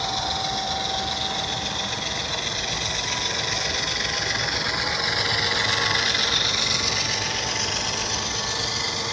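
HO scale model freight train running past: a steady mechanical whir and rumble of locomotive motors and wheels on track, getting a little louder about six seconds in as the train passes closest.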